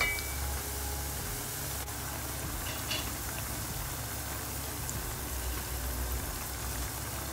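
Battered fritters of kinpira burdock and small shrimp deep-frying in hot oil: a steady sizzle of bubbling oil, with a couple of light clicks around the middle.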